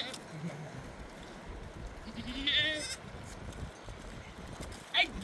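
Sheep bleating: one wavering bleat about halfway through and a short, sharp one right at the end, over a low rumble.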